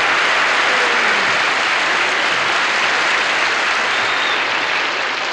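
Large audience applauding steadily, easing off slightly toward the end.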